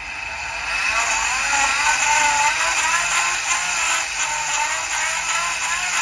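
Greyhound lure winch reeling in the drag line: a continuous mechanical whir whose pitch wavers up and down.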